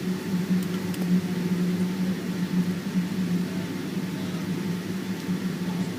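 Steady cabin noise inside a Boeing 777-200ER: a constant low hum from the running engines and aircraft systems over an even rush of air, with no change in pitch.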